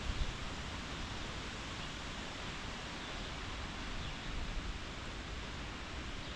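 Steady outdoor background noise: an even hiss with a low rumble underneath, with no distinct event standing out.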